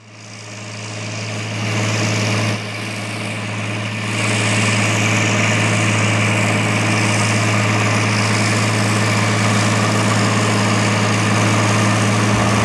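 International Harvester 3588 2+2 tractor's diesel engine running steadily with a deep hum, fading in at the start and growing a little louder about four seconds in.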